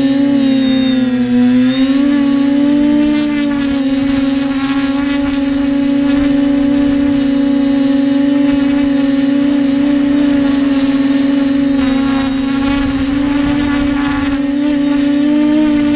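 TBS Discovery PRO quadcopter's electric motors and propellers running in flight, a steady whine that dips and then rises slightly in pitch about a second in, and rises again briefly near the end as the drone adjusts.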